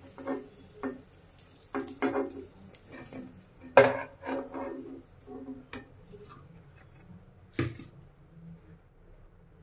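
Kitchen utensils clinking and knocking against a frying pan and dishes: a run of short clatters, the loudest about four seconds in and another sharp knock about three-quarters of the way through, then it dies down.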